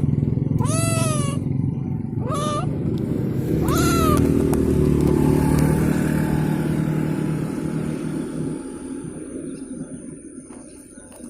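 A stray kitten meowing three times, each meow rising then falling, over the steady low rumble of a running engine that fades away near the end.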